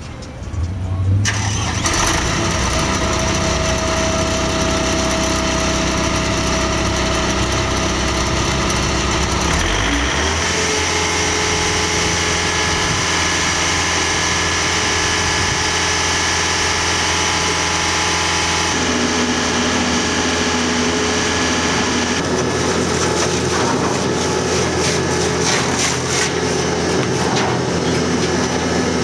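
The engine of a portable tire shredder's power unit starts up about a second in and settles into steady running. About ten seconds in its pitch rises as it speeds up. From a little past twenty seconds a rapid clattering joins the engine.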